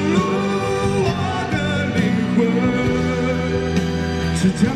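A solo singer performing a Mandarin ballad line through a stage microphone, holding long notes with some vibrato, over a Yamaha CP stage piano and a steady low accompaniment.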